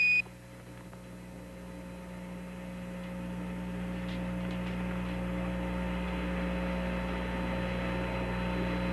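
A brief high Quindar beep right at the start, then the steady hum and hiss of an open Apollo air-to-ground radio channel, slowly growing louder.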